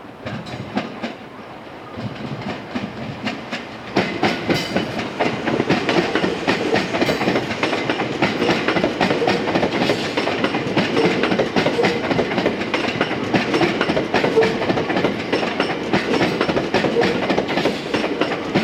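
A train running on the rails close by, wheels clacking over rail joints. It grows suddenly louder about four seconds in and stays loud.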